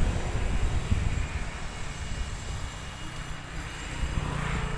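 Passing road traffic: a low rumble that fades, then swells again near the end.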